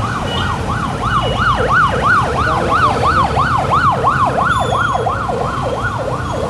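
Siren yelping, its pitch rising and falling quickly about four times a second, over steady low road and wind noise.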